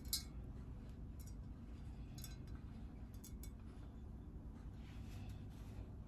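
A damp rag wiping the rims of glass quart canning jars: soft rubbing with a few light clicks and taps of glass, the sharpest one just at the start, over a low steady room hum.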